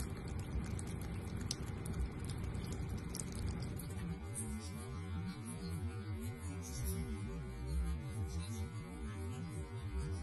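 Water running from a kitchen faucet as a cat drinks from the stream, with small splashing clicks. About four seconds in, low wavering tones, like background music, come in over it.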